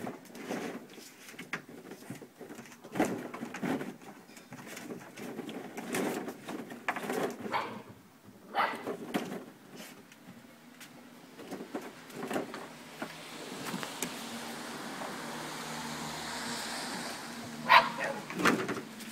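Young puppies playing and scrambling around a hollow plastic sandpit, with irregular knocks, clicks and scrapes of paws and bodies on the plastic and boards, and short puppy growls and yips. A steady background rush builds in the second half, and there is one sharp, loud sound near the end.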